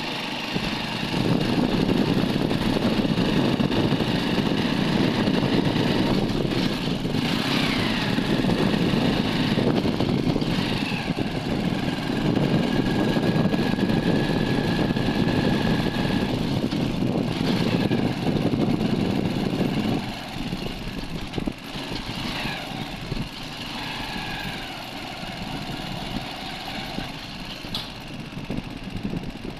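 Engine and road noise of the vehicle carrying the camera as it drives along town streets. The noise is loud and steady, then drops noticeably quieter about two-thirds of the way through. A few brief falling-pitch sounds are heard over it.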